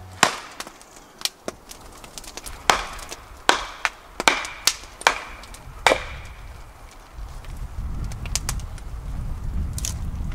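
Axe blows splitting firewood on a log chopping block: about eight sharp knocks over the first six seconds. From about seven seconds in, a low rumbling noise takes over.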